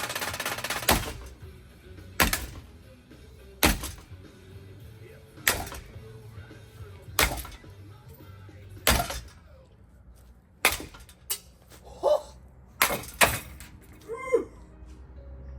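A ceiling fan being wrecked: a loud, dense rattling noise cuts off about a second in, then sharp single clanks come every second and a half or so, bunching closer together near the end.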